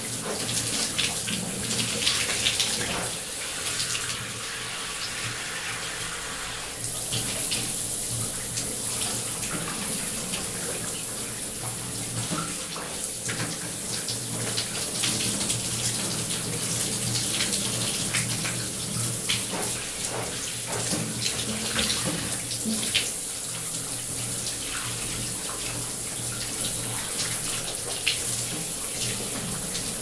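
A person showering: the shower spray runs steadily, hissing and splattering as the water breaks on the body and the shower floor. About seven seconds in, the spray gets louder and brighter.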